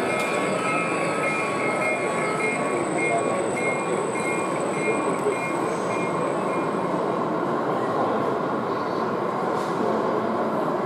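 Model diesel freight train running along the layout, over a steady hubbub of voices in the exhibition hall. A repeating pattern of short high tones sounds through the first seven seconds or so, then stops.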